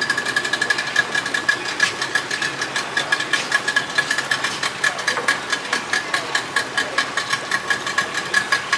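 A boat engine running steadily with a fast, even knock of about five beats a second.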